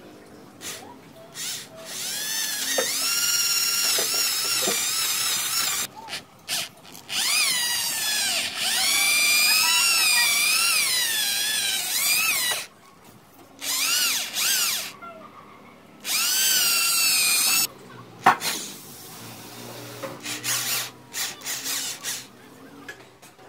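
Corded electric drill boring a concealed-hinge cup hole into an MDF cabinet door with a hinge-boring bit, its motor whine rising and falling in pitch as the bit cuts under load. It runs in several spells of a few seconds with short stops, a sharp knock past the middle, then brief trigger blips near the end.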